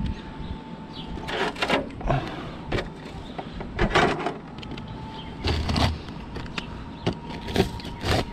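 Utility knife slicing through asphalt roof shingles in several short rasping strokes a second or two apart.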